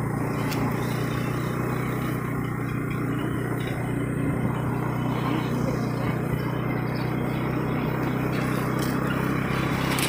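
Motorcycle riding steadily along a road: a constant engine hum mixed with road and wind noise on the microphone.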